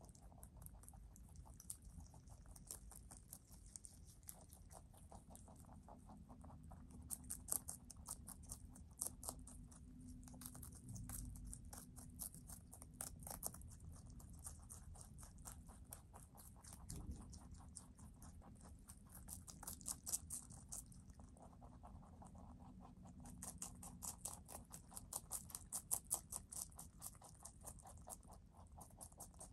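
Two rabbits munching leafy greens: quiet, rapid crisp chewing in runs of quick bites, louder in the middle and toward the end.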